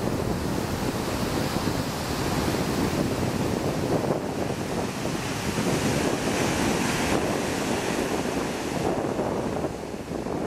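Medium-high ocean surf breaking and washing up a sandy beach, a continuous rush with a wave's wash swelling louder in the middle. Wind rumbles on the microphone underneath.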